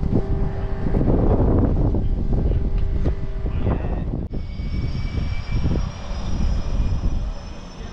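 Twin turbine engines and rotors of an RAF Puma helicopter running loudly. About four seconds in the sound changes abruptly to a steady high turbine whine over the rumble.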